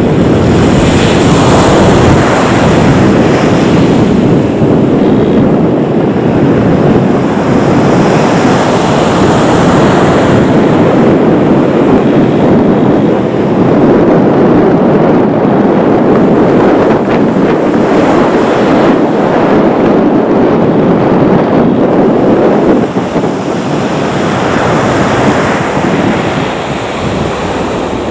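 Jet engines of a Copa Airlines Boeing 737-800 (CFM56 turbofans) at taxi power, a steady loud rushing roar with a hiss above it that swells now and then. It falls off a little after about 23 seconds.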